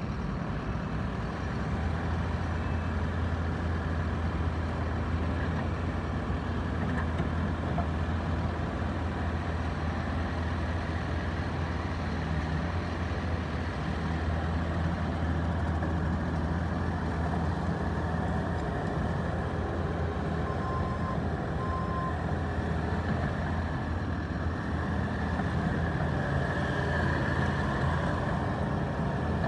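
Bobcat T650 skid steer's diesel engine running steadily, with two short high beeps about two-thirds of the way through.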